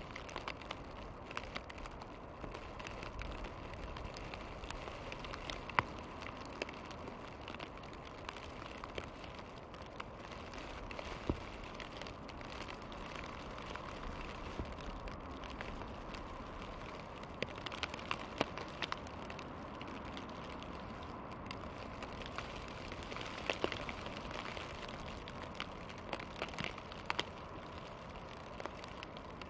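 Heavy snowfall in a forest: a steady soft hiss with many small, scattered ticks and taps of wet snow landing.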